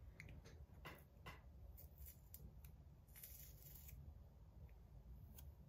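Near silence with a few faint scattered clicks and a brief soft rustle a little past the middle, small handling noises.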